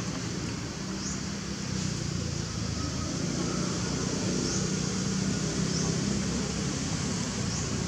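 Steady low mechanical hum, like a motor or distant traffic, under an even hiss, with faint short high chirps about every second and a half.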